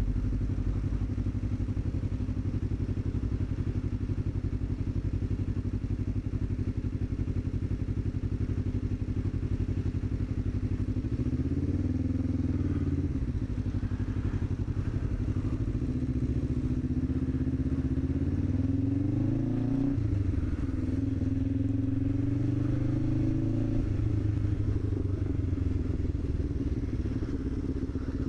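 Motorcycle engine running, steady for the first ten seconds or so. Then, from about eleven seconds in, its pitch rises and falls back several times as the bike speeds up and slows.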